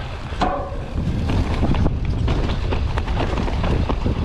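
Mountain bike riding down a rocky, rooty trail: wind buffets the microphone while the tyres, suspension and chain rattle and knock over rocks and roots in quick irregular clicks.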